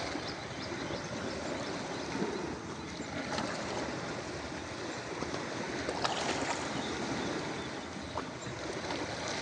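Ocean waves washing onto a beach: a steady rush of surf and moving water, with a few short sharp clicks or splashes.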